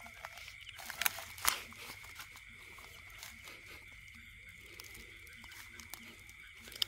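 Faint night-time chorus of insects: a steady high-pitched drone, with two sharp clicks about a second and a second and a half in.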